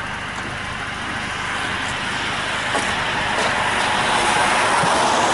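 A road vehicle approaching and passing: its tyre and engine noise builds steadily, loudest near the end.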